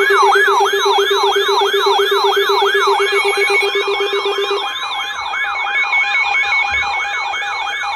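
Electronic emergency alert tones: a loud, fast siren wail sweeping up and down about three to four times a second, layered over steady alert tones. A lower pulsing tone drops out about halfway through.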